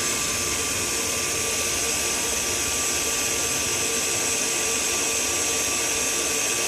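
KitchenAid Heavy Duty stand mixer running steadily at medium speed, its wire whisk beating dairy whip in a steel bowl. The cream is coming up to its stiffest point.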